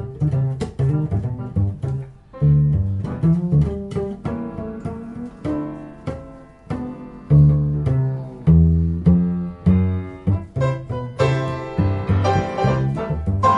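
Upright double bass played pizzicato: a solo line of plucked low notes, each one sounding and dying away, with short gaps between phrases.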